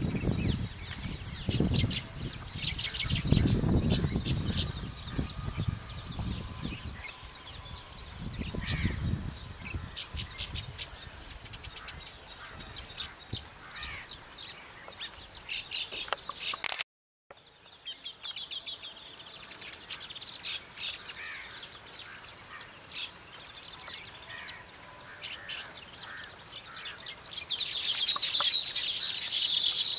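Baya weavers chattering at their nests: a rapid stream of thin, high chirps, rising to a louder wavering trill near the end. A low rumble lies under the first third, and the sound cuts out completely for a moment about halfway through.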